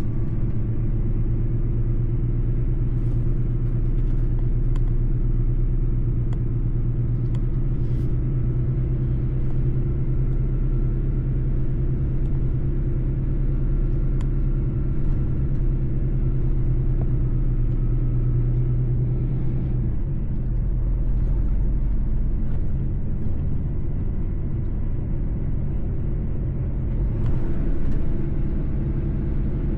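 Mercedes-Benz truck's diesel engine running steadily under way, a continuous low drone with a few faint clicks and rattles. The engine note shifts lower about two-thirds of the way through.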